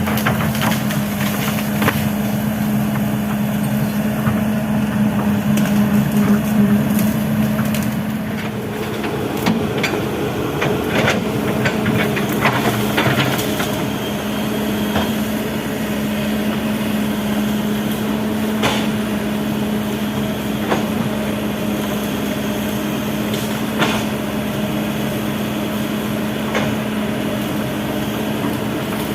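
Kobelco SK200 excavator's diesel engine running steadily under load, its note shifting about a quarter of the way in. Over it come sharp cracks and knocks of wood breaking as the machine clears timber, thickest through the middle.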